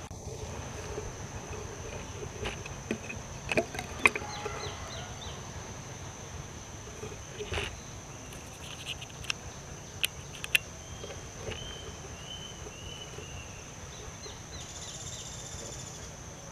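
Insects, crickets or cicadas, droning steadily at one high pitch, with scattered clicks and knocks and a short run of high chirps about eleven seconds in.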